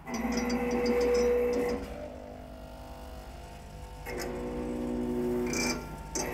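Four-head weigher's vibratory feed trays humming in two bursts of about two seconds each, the first at the start and the second from about four seconds in, quieter between: the feed cycles moving tin powder toward the weigh buckets.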